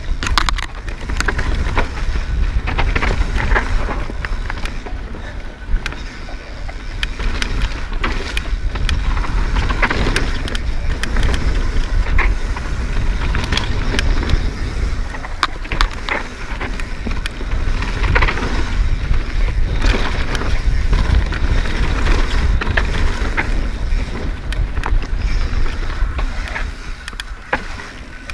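Mountain bike ridden fast downhill on a dirt trail: a steady rumble of tyres and wind on the camera microphone, with frequent clicks and rattles of the chain and frame over bumps.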